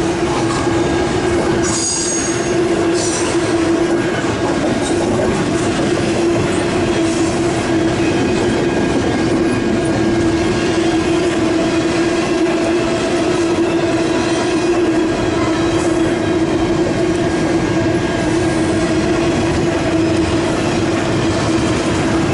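Train rolling past with continuous rumble and rail noise, and a steady squeal of wheels on the rails.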